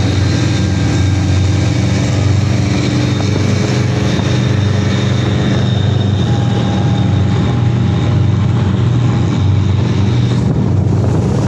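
Pompong (small wooden motorboat) engine running at a steady cruising pace, a loud, even drone heard from on board, with the rush of water along the hull beneath it.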